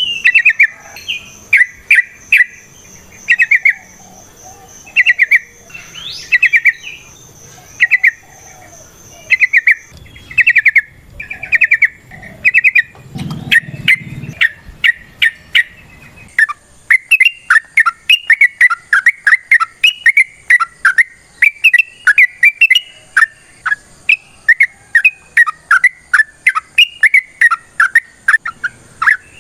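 Yellow-vented bulbul (trucukan) singing: short bubbly phrases about a second apart, becoming a denser, near-continuous run of notes about halfway through. A steady high-pitched tone runs underneath.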